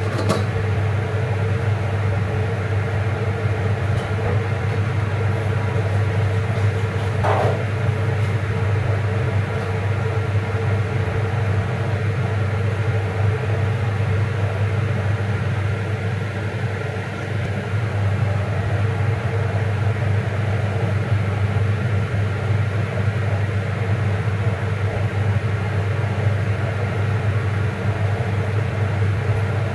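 Steady low motor hum with an even hiss over it, the constant running noise of a kitchen appliance.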